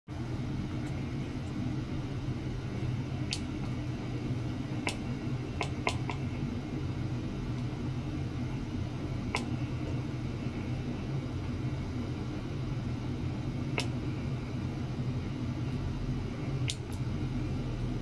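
Steady low hum with about ten short, sharp clicks scattered through it.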